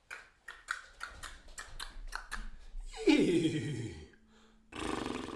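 A person imitating a horse with the mouth: a run of tongue clicks like clip-clopping hooves, about three a second, then a loud whinny that falls steeply in pitch. About a second later a second, noisier animal call begins.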